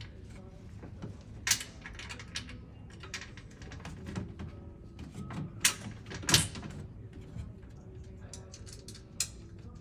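Irregular knocks, clicks and clatters of bed-frame parts being handled and fitted, the loudest sharp knocks about a second and a half in and twice around six seconds in.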